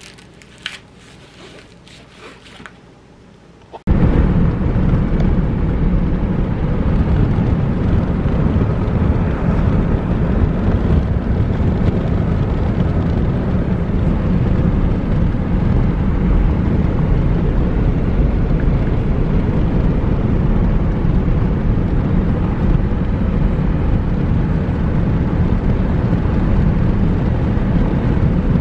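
A few faint clicks of handling in a quiet room. About four seconds in, this gives way to steady, loud road and wind noise inside a car's cabin as it drives along, with a heavy low rumble.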